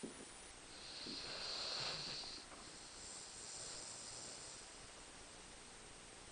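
Sleeping Rhodesian Ridgeback's breathing: a long, airy, hissing breath through the nose starting about a second in, then a fainter one about three seconds in. A short soft knock at the very start.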